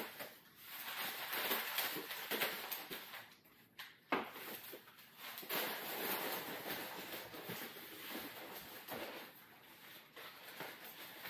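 Crumpled kraft packing paper rustling and crinkling as hands dig through a cardboard box, with a light knock about four seconds in.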